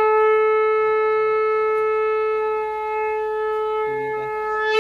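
A conch shell (shankh) blown in one long, steady note, sagging slightly near the end before swelling again.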